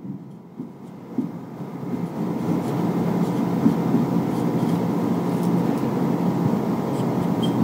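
Low engine rumble with a steady hum, like a motor vehicle running, swelling over the first two seconds or so and then holding steady.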